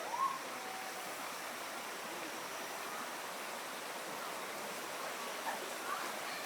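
Steady rushing of running water, with a few short, faint high squeaks: one right at the start and two near the end.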